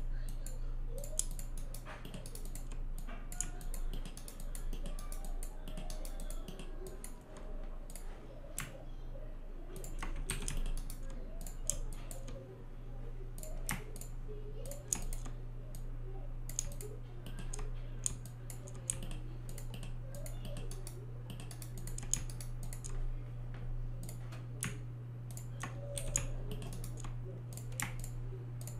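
Irregular clicks of a computer keyboard and mouse as vertices are selected and moved in Maya, over a steady low electrical hum.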